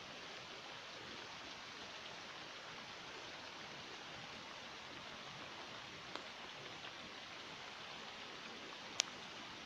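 Steady rain falling, a low even hiss with a few light taps and one sharp click near the end.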